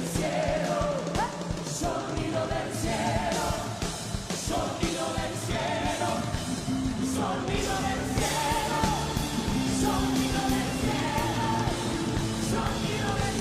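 Christian worship song played by a rock band, with sung vocals holding long, wavering notes over a full band accompaniment.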